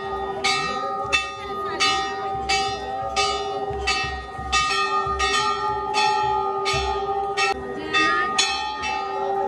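Hindu temple bells struck over and over by devotees, about one and a half strokes a second. Each stroke rings on, so the tones carry steadily between strikes.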